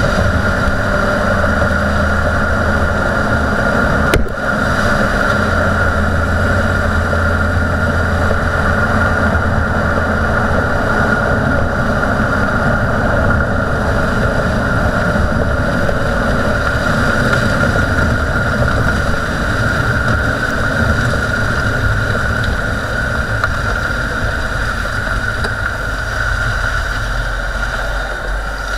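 Road and tyre noise heard at a Dodge Durango's front suspension while driving, with the steady growl of a front hub bearing unit running under it, the sign of a worn wheel bearing. A brief click about four seconds in.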